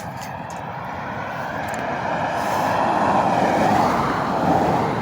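A motor vehicle passing close by, its rushing engine-and-tyre noise swelling over the first three seconds and then holding loud.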